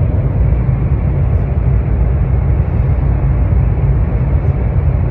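Steady, loud rumbling cabin noise of a moving high-speed train.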